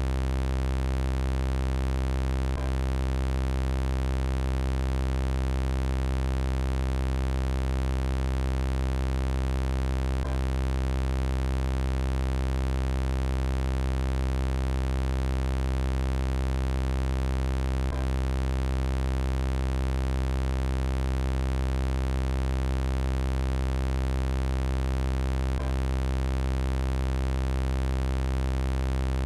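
Synthesized robot-voice sound effect: a steady electronic buzz on one low, unchanging pitch, rich in overtones, with a faint click about every eight seconds where the loop repeats.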